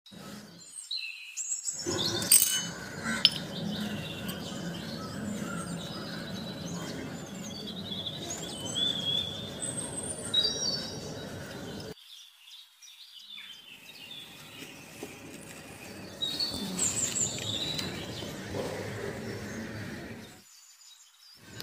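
Birds chirping and calling over steady outdoor background noise, with two sharp knocks a couple of seconds in; the sound drops out briefly twice.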